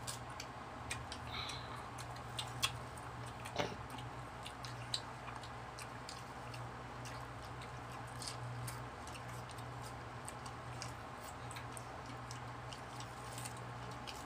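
People chewing ripe mango flesh: scattered small wet clicks and smacks of mouths and lips, over a steady low hum.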